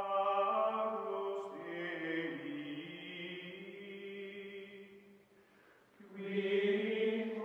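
Chant-like sung music of long held vocal notes that shift in pitch a couple of times, fade about five seconds in, and return with a new phrase about a second later.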